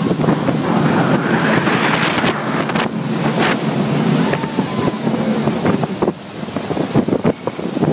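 Speedboat running fast through churning water: a steady engine hum under the rush of spray and wind buffeting the microphone. About six seconds in the engine eases off and the water sound settles.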